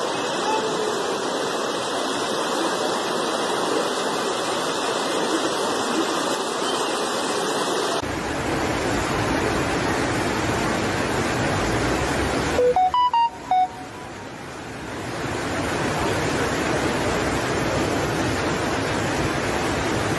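Muddy floodwater rushing through a street: a steady, loud wash of water noise. Past the middle, a short run of loud beeps at changing pitches cuts in briefly, then the rushing water carries on.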